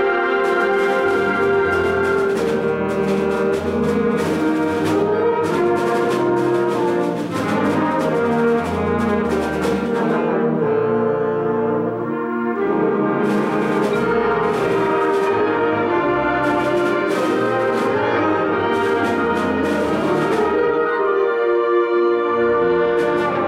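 A student concert band playing a fanfare: full brass and woodwind chords punctuated by sharp accented hits. For a couple of seconds around the middle it drops to softer held chords without the hits, then comes back in full.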